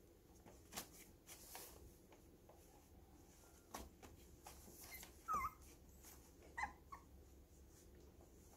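Young puppies play-wrestling: a few short, high whimpers, the loudest about halfway through and another soon after, among faint scratches and rustles of the newspaper lining the plastic crate they tumble on.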